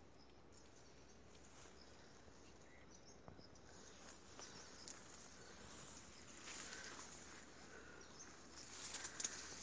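Faint outdoor field ambience: a few soft bird chirps, and light rustling with small clicks that grow a little louder in the second half.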